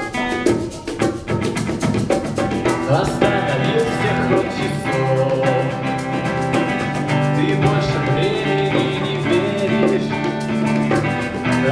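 A band playing a song: guitar with a drum kit keeping the beat, sustained notes held over it.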